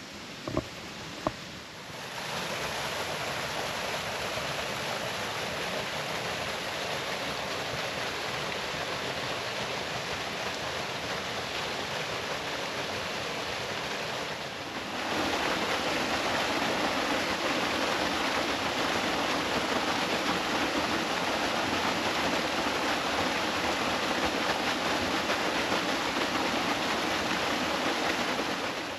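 Water rushing steadily at a small waterfall and its mountain stream, stepping up in level about two seconds in and again about halfway through. A few light knocks sound in the first second and a half.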